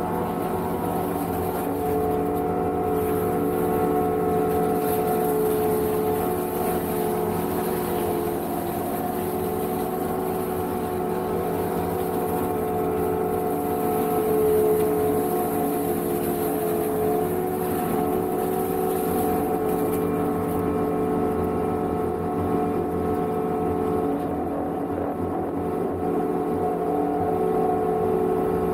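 Energreen ILF S1500 self-propelled boom mower running steadily, its diesel engine and the hydraulically driven mowing head on the arm working as it cuts dry grass and brush along a bank. The machine's hum holds an even pitch with no breaks.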